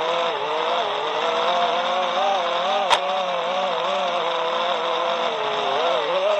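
5-inch FPV racing quadcopter's brushless motors (Hypetrain Botgrinders) whining, the pitch wavering up and down as the throttle changes. A single sharp click comes about three seconds in.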